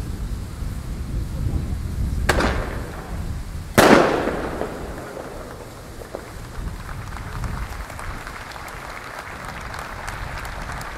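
Two firecracker bangs about a second and a half apart, the second louder and echoing, over low wind rumble on the microphone and the murmur of a crowd.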